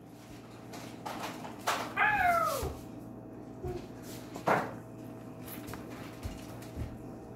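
A cat meows once, a single call about two seconds in that falls in pitch, with a few light clicks around it.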